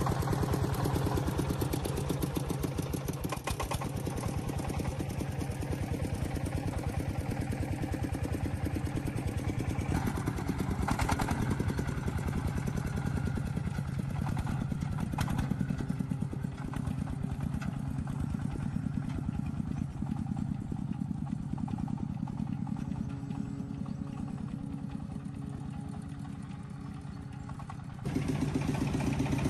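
An engine running steadily with a rapid, even firing beat. It fades a little and then comes back louder abruptly near the end.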